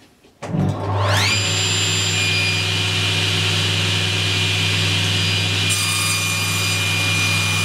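Table saw switched on: the motor and blade spin up with a rising whine about half a second in, then run steadily at full speed while a pine shelf panel is fed into the blade on a crosscut sled.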